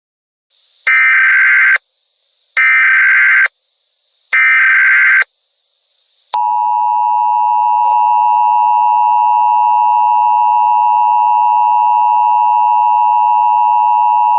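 Emergency Alert System tones: three short bursts of SAME header data, a harsh digital screech, each under a second with a short gap between. About six seconds in, the steady EAS two-tone attention signal (853 and 960 Hz together) starts and holds.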